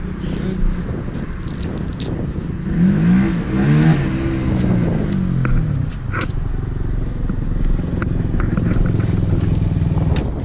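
Honda dirt bike engine idling, blipped a few times with pitch rising and falling about three to five seconds in, then settling back to a steady idle. Light clicks and scrapes of gloves being pulled on and fastened.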